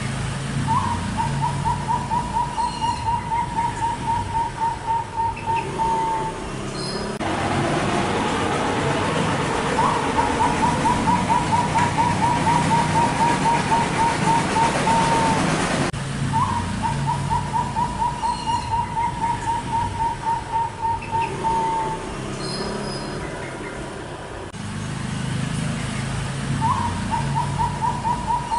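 Perkutut (zebra doves) and other caged birds calling: a rapid trill of evenly spaced notes lasting about five seconds, repeated four times, over soft low cooing.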